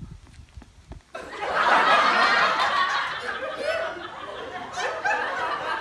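Near silence for about a second, then several people laughing together, a dense wash of overlapping chuckles that carries on to the end.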